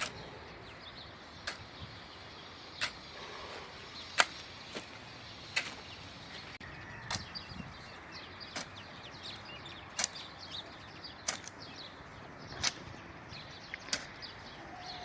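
Sharp knocks at a steady pace, about one every second and a half, from a digging tool striking the ground while a field is worked by hand. Small birds chirp between the strikes.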